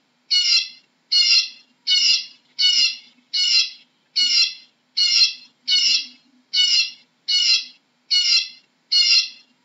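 Eurasian bullfinch calling: one short, harsh call repeated at an even pace, about twelve times, a little over one call a second.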